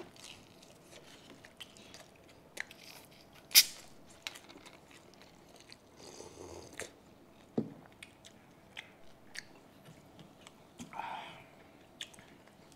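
Close-up chewing and crunching of crispy fried pork belly (lechon kawali), with scattered sharp crunches, the loudest about three and a half seconds in. A short slurp comes about six seconds in.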